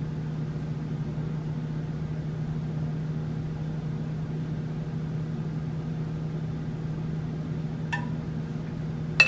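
Steady low hum of an air fryer's fan running while it cooks, with a light click about a second before the end.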